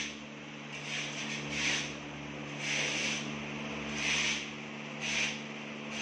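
Gypsum plaster being scraped into shape with a hand-held profile template drawn along the run. There are five rasping strokes, about one a second, over a steady low hum.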